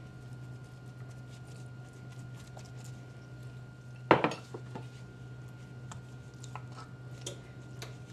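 Metal kitchen utensils clinking: one sharp clack about four seconds in, then light taps and scrapes of a metal spoon in a cast iron skillet, over a steady low hum.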